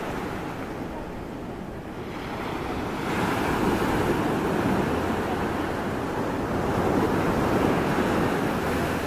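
Small waves breaking and washing up on a sandy shore, with wind buffeting the microphone. The surf grows louder about three seconds in and swells twice.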